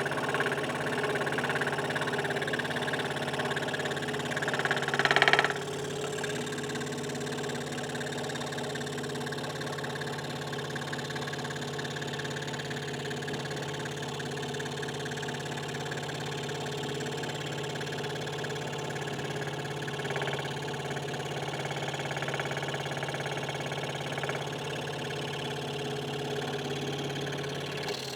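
Hegner Multicut 2S scroll saw running and cutting wood, its blade reciprocating with a steady mechanical hum. The sound swells briefly louder about five seconds in.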